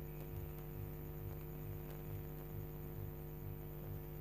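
Steady low electrical hum, like mains hum picked up in the recording, with a faint throb pulsing about two to three times a second.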